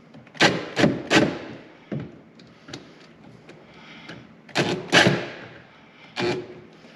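A 1.5-inch hole saw starting a cut in short goes, with no pilot bit: a run of sharp knocks and scrapes as its teeth catch and skip on the plate. There are three quick knocks at the start, then two fainter ones, a loud pair about two-thirds of the way in, and one more near the end.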